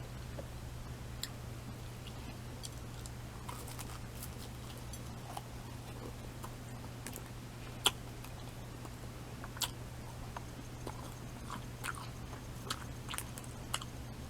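A person chewing pastry-wrapped sausage close to the microphone: soft mouth clicks and smacks scattered through, the sharpest about eight seconds in, over a steady low hum.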